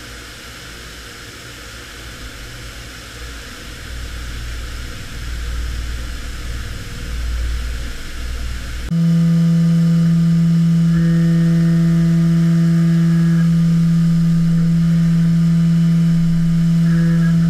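CNC vertical milling machine cutting a metal plate under flood coolant: a hiss of coolant spray over a low, wavering rumble. About nine seconds in, the sound changes abruptly to a louder steady low tone from the spindle and cutter, with a higher whine that comes and goes.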